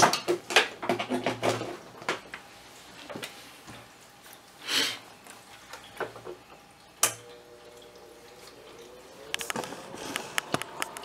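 Amiga 1000 keyboard keys being pressed to test them after contact cleaner was worked into dead key contacts: a quick run of key clicks over the first two seconds, then scattered single clicks and another cluster near the end. A short hiss comes about halfway through.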